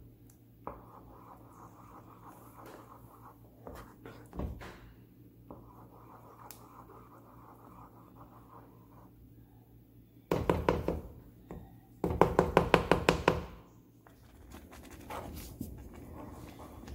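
A wooden spoon stirring thick cornmeal porridge in a non-stick pan, a faint scraping with a few soft knocks. About ten seconds in, and again from about twelve to nearly fourteen seconds, two louder bursts of rapid rattling pulses come in. They are the loudest sound here, and their source is unclear.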